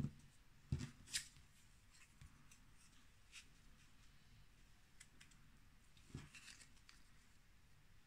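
Quiet handling of paper cardstock pieces being pressed together and lined up by hand on a craft mat. A few light taps and clicks come in the first second or so, and a soft knock comes about six seconds in.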